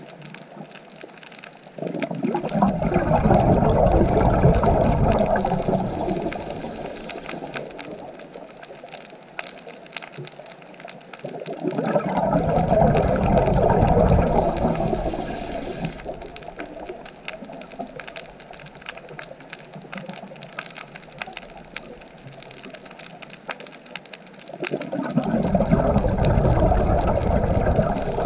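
Scuba diver's exhaled bubbles burbling past an underwater camera, three bursts about eleven seconds apart, following the diver's breathing. Each starts suddenly and fades over a few seconds, with a faint crackle of the water between them.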